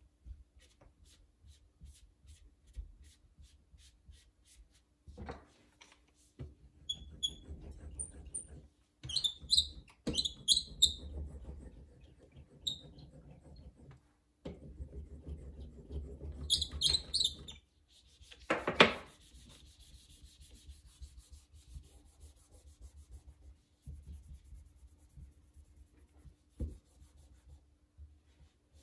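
Hands and tools working a slab of clay on a work surface: irregular rubbing and scraping, with light clicks, a few short high squeaks and one louder scrape a little past the middle.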